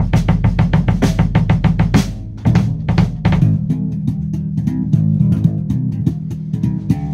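Drum kit and electric bass guitar playing a groove together: fast snare and kick hits over a run of deep, sustained bass notes. About two seconds in the playing drops out briefly, then the bass line carries on under lighter drumming.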